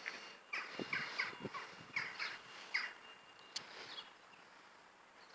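Small birds calling in a run of short, sharp chirps, thickest in the first three seconds and thinning out after that.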